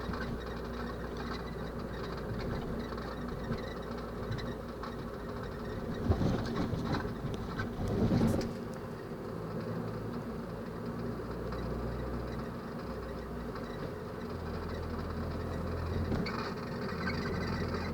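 Peugeot 208 GTI on the move: a steady low running drone with irregular squeaks and creaks from the car. A sharp knock about six seconds in and a louder surge of noise around eight seconds.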